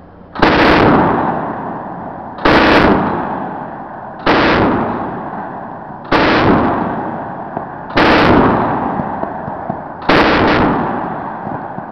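A ship's deck gun firing six shots or short bursts out to sea, about one every two seconds; some come as two quick rounds, and each report rolls away in a long fading echo.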